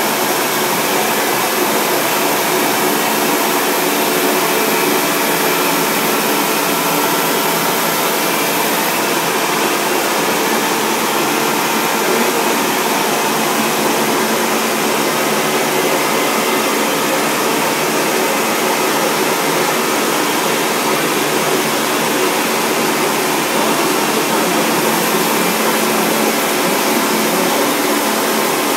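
Foam-cutting machine running steadily: a loud, even whir with a faint high whine that drops out about nine seconds in and comes back near the end.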